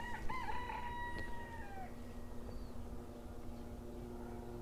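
A drawn-out animal call in the first two seconds, held at one pitch with a few wavers and then falling off, over a faint steady hum.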